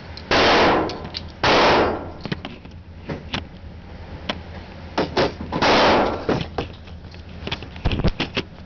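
Gunshots at an indoor shooting range: three loud shots, the first two about a second apart and the third some four seconds later, each with a short echo off the range walls. Fainter sharp cracks fall in between.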